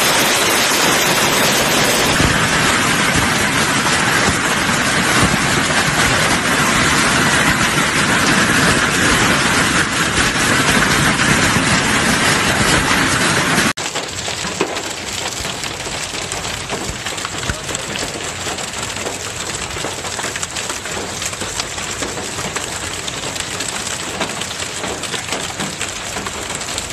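Heavy hail falling on the ground and on parked vans: a dense, steady noise of countless small impacts. About halfway through it cuts abruptly to a slightly quieter, hissier recording of hail.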